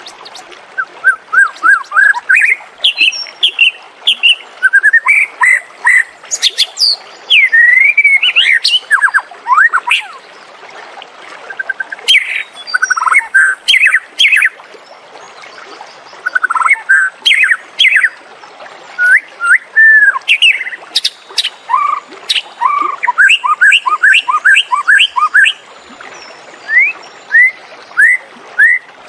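White-rumped shama singing: a varied song of clear whistled phrases, fast runs of short rising notes and sharp ticks, broken by brief pauses between phrases.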